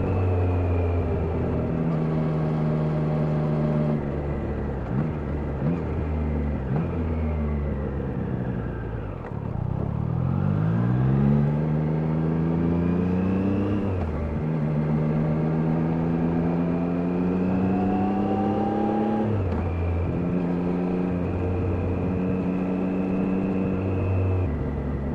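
Triumph Daytona 660's inline three-cylinder engine on the road: it holds steady, then engine speed falls with a few quick blips around the middle. It then accelerates with a rising pitch through about three gear changes.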